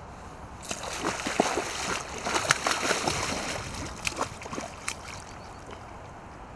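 Hooked pike thrashing at the water's surface: a run of splashes that starts about a second in, is loudest around the middle, and dies away near the end.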